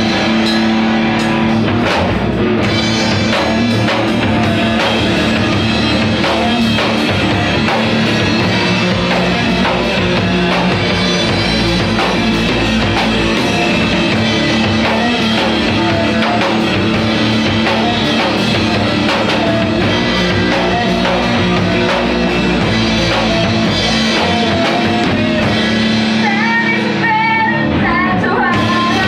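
Rock music played on a drum kit and guitars.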